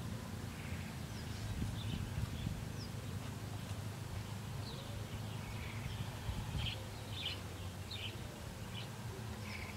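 Countryside ambience: small birds chirping briefly and repeatedly over a steady low rumble.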